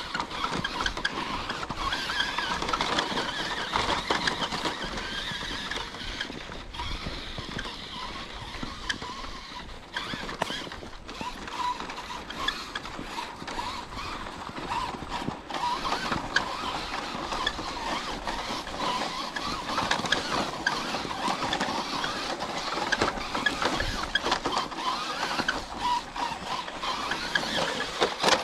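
Electric radio-controlled truck driving through snow, its motor and gears running with a rising and falling load and many small crackles from the tyres.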